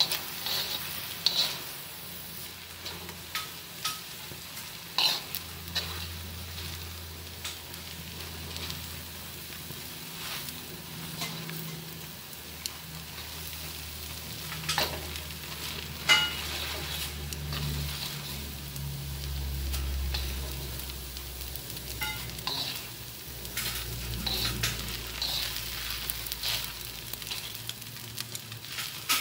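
Rice vermicelli sizzling in a hot wok as it is stirred and tossed with wooden chopsticks, with scattered sharp clicks of the chopsticks against the wok and a low hum underneath.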